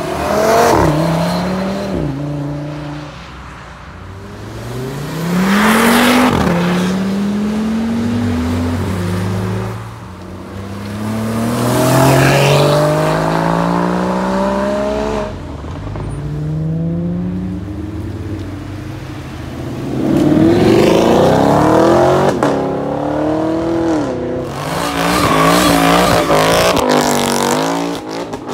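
Sports cars accelerating hard away one after another, about five in turn. Each engine note climbs in pitch through a gear, drops back at the shift and climbs again.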